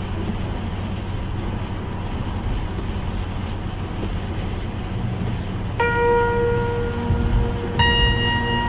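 Steady road noise of a car driving on a wet highway, heard inside the cabin. About six seconds in, sustained bell-like chime tones begin, with a second set about two seconds later: the opening of a song playing in the car.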